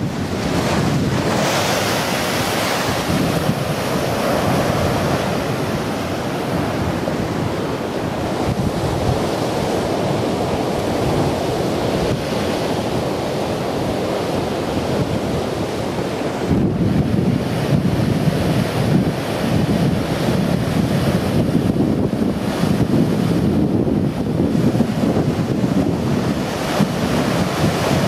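Heavy storm surf breaking against and over a seawall: a continuous rush of churning seawater, with a hissing crash of spray about a second in. Wind buffets the microphone, and the sound grows fuller and gustier from about two-thirds of the way through.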